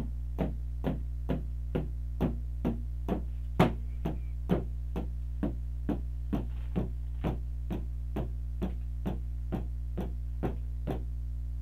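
Steady clicks, about two a second, ticking out the eighth notes of a 4/4 rhythm-reading exercise, over a low electrical hum.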